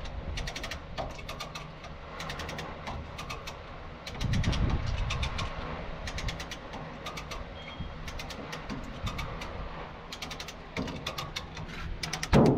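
Runs of quick, evenly spaced metallic ratchet clicks as a chain is tensioned to pull a dent out of a truck cab's door pillar, over a steady low rumble. There is a heavier low burst about four seconds in and a loud thump near the end.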